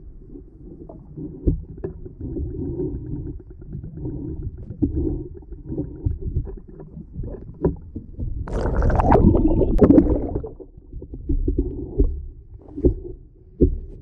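Muffled underwater sound of a submerged camera: a low rumble of moving water with scattered knocks against the housing. About eight and a half seconds in, a louder rush of splashing water lasts about two seconds.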